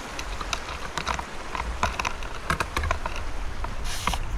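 Thin river ice cracking and crunching in a quick, irregular series of sharp little clicks, with a louder crunch near the end, as a slab breaks apart while being worked loose. A low rumble of wind on the microphone runs underneath.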